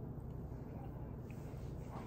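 Quiet room tone: a steady low hum with faint hiss, and no distinct sound standing out.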